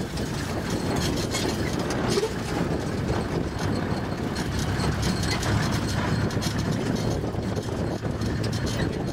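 Off-road vehicle driving along a rough bush track, heard from on board: the engine rumbles steadily under a constant clatter and rattling from the body over the bumps.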